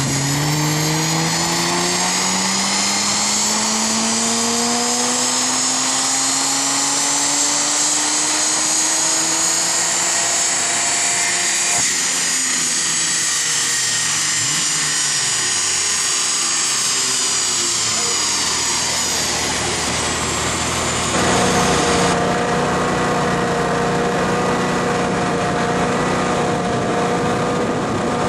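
A BMW 1M Coupé's twin-turbo straight-six runs a dyno pull, climbing slowly and steadily in revs for about twelve seconds over the high whine of the spinning rollers and tyres. It then lifts off, and the engine and rollers spin down together. About three-quarters of the way through, this gives way to an engine idling steadily.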